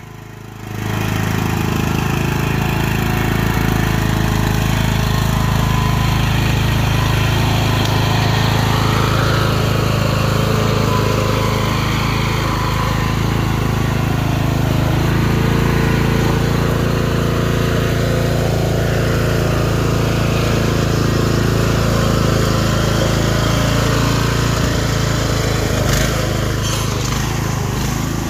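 Craftsman riding lawn tractor's engine running steadily as the tractor is driven, swelling to full volume about a second in. A couple of sharp knocks sound near the end.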